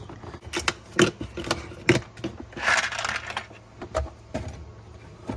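A small toolbox being opened and handled: a run of sharp clicks and clacks from its case and the metal tools inside, with a short scraping rustle near the middle.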